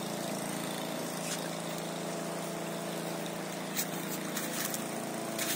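A motor hums steadily with several held tones. A few short clicks, steps on stones, come through over it.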